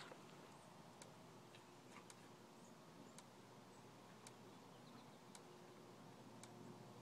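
Near silence, with a faint, regular tick about once a second and a few faint high chirps.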